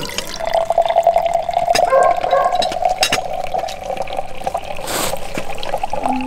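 Red berry compote streaming from the chrome tap of a glass drink dispenser into a drinking glass: a thin pouring trickle with a steady tone as the glass fills.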